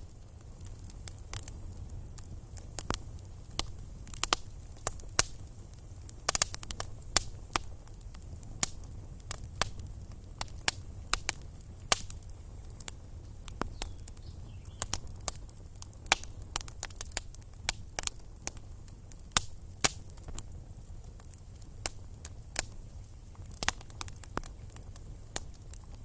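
Campfire of sticks crackling: irregular sharp pops over a low steady rumble.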